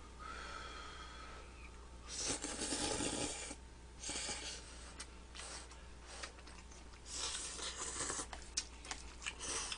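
People slurping glass noodles from a beef bulgogi hot pot in several hissy slurps, the longest a little after two seconds in, with small wet mouth clicks of chewing between.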